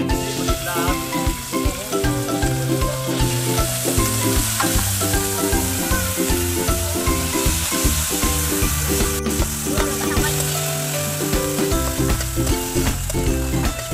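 Small shellfish in their shells sizzling in hot oil in a wok, the sizzle growing louder a few seconds in as they cook, with a spatula stirring them near the end. Background music with a repeating bass line plays throughout.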